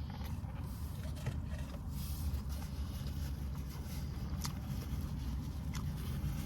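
Steady low rumble of a parked car heard from inside its cabin, the engine left idling, with a few faint sharp clicks.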